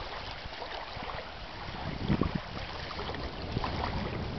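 Strong storm wind blowing and buffeting the microphone: a steady rushing noise with a few faint ticks scattered through it.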